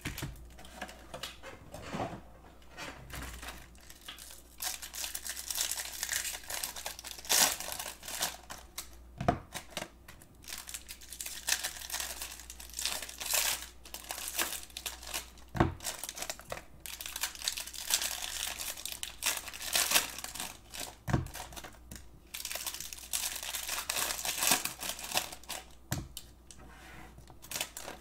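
Foil wrappers of 2019 Bowman Draft jumbo packs being torn open and crinkled by hand, in uneven rustling spells, with a few sharp knocks about 9, 16 and 21 seconds in.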